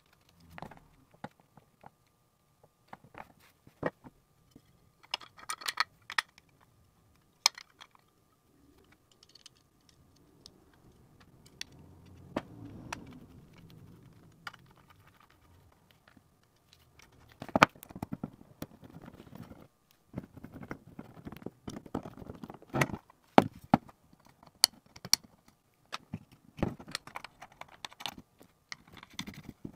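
Scattered clicks, taps and light scrapes of a tube guitar pedal being reassembled by hand: a vacuum tube fitted to its circuit board, then a screwdriver working screws on the metal enclosure. The taps come thicker in the second half.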